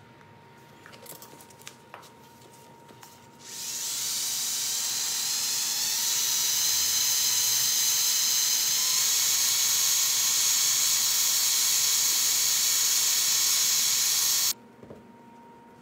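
Electric drill spinning a paddle mixer in a plastic bucket of liquid, stirring in pigment. It starts a few seconds in, speeds up over the first couple of seconds, runs steadily for about ten seconds, then stops suddenly.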